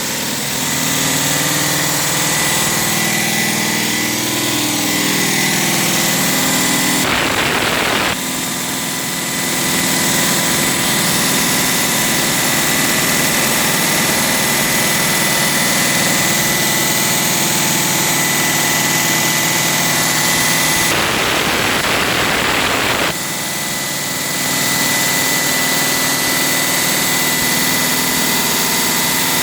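Engine of concrete-cutting equipment running steadily, with a constant high whine, broken by two stretches of harsher, grittier noise about seven and twenty-one seconds in.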